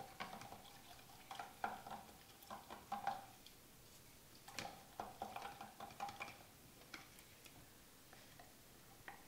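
Wooden stick stirring a thin mixture of pine tar and benzine in a plastic tub: faint, irregular scrapes and taps against the tub's wall, with a slight squeak, in two busy spells, then quieter near the end.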